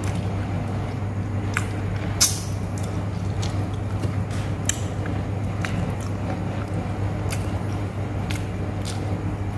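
Close-up chewing of a martabak filled with hard chicken bone, with short sharp crunching clicks about once a second, the loudest about two seconds in, over a steady low hum.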